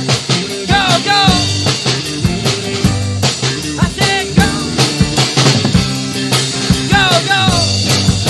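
Rock band playing, with a drum kit striking a steady beat under held bass notes. High notes bend in pitch about a second in and again near seven seconds.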